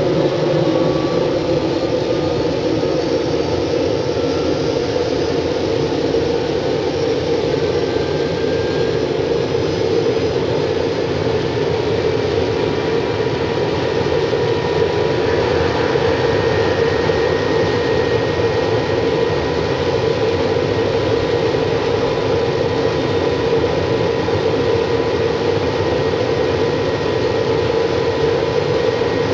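An engine running steadily, a constant drone with a faint steady whine over it.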